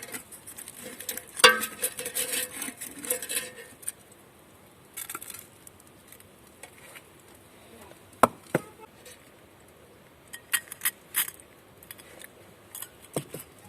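Tableware and metal being handled: a run of clinks and clatter over the first few seconds, one sharp knock about eight seconds in, and a few quick clicks a little later.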